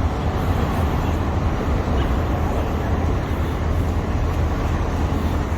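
Steady low rumbling noise, heaviest in the deep bass.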